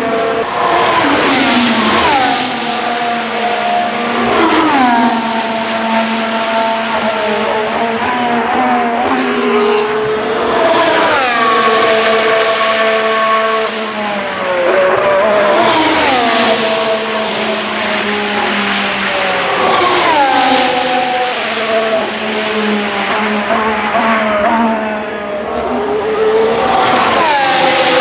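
Formula 1 cars' turbocharged V6 hybrid engines screaming past one after another. There are about six pass-bys, each a high engine note that drops sharply in pitch as the car goes by, over a steady engine drone.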